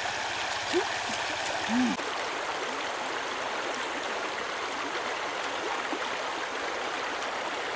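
Shallow river running over stones: a steady rush of flowing water. Two short voice-like sounds are heard in the first two seconds.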